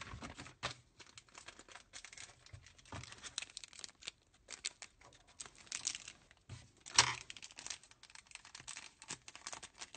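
Small clear plastic bag holding the toy's little knife accessory being handled and opened by hand: an irregular run of crackles and sharp clicks, the loudest about seven seconds in.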